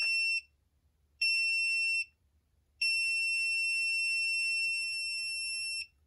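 Eggtimer Quantum flight computer's buzzer beeping at power-up with a single high-pitched tone: a beep ending just after the start, another of under a second about a second in, then one long tone of about three seconds. This is the startup beep pattern showing the freshly assembled board works.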